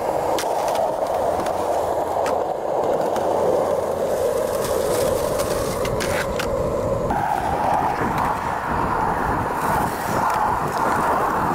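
Skateboard wheels rolling on a concrete skatepark surface, a steady rolling noise, with a few sharp clacks of the board popping and landing. The rolling noise shifts about 7 seconds in.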